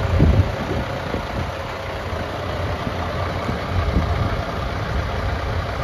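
2012 International ProStar+ day cab's MaxxForce diesel engine idling steadily, a low even rumble.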